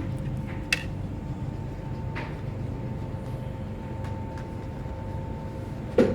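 A few light clicks and then a louder knock near the end as laptop parts are handled with the motherboard removed, over a steady hum.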